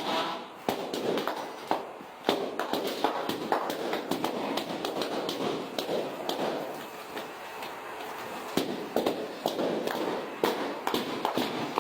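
Latex party balloons being popped one after another: sharp pops at irregular intervals, a few loud ones among many fainter ones, over a steady rustle.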